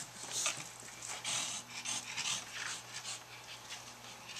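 Small dog panting in quick, uneven breaths, a couple each second, while it plays with a ferret.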